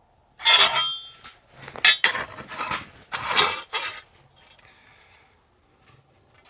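Metal tools scraping and clinking against a John Deere 60 tractor's cylinder head, four rough strokes over about three seconds, then only faint handling noise.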